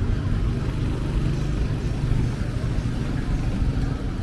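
Street traffic with motorcycle and car engines running close by: a steady low rumble.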